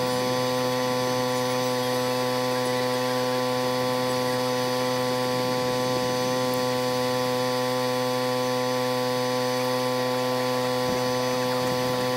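A steady electrical hum with a row of even overtones, unchanging in pitch and level.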